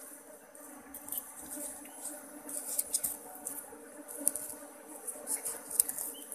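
Wild bees buzzing around their opened ground nest, a steady low hum, with scattered small clicks and crackles throughout.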